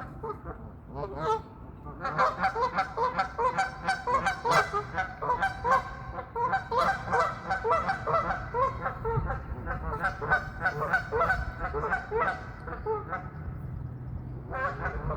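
Several geese honking, many short calls overlapping in a rapid run that starts about two seconds in and dies away a couple of seconds before the end.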